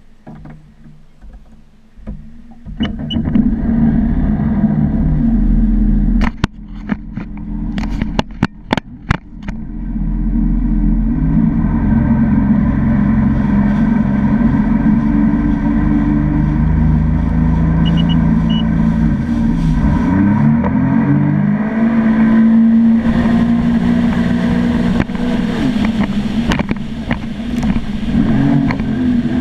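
Sea-Doo GTR 215 jet ski's supercharged three-cylinder engine and jet pump: quiet at first, then opening up about three seconds in and running hard under way. A few seconds later come several sharp knocks, and about two-thirds through the revs drop briefly and pick up again.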